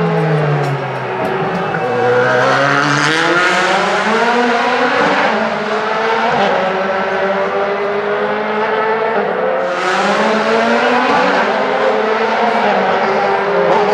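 Several DTM touring cars running past, their 4-litre V8 engines overlapping, with notes rising and falling as the cars rev and go by.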